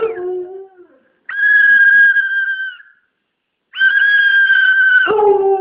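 Siberian husky howling: two long, high, steady held notes with a short silence between, then near the end the pitch drops into a lower, fuller howl.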